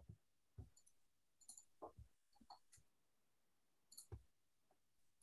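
Near silence: room tone with about a dozen faint, scattered clicks and soft taps, the strongest about two seconds in and just after four seconds.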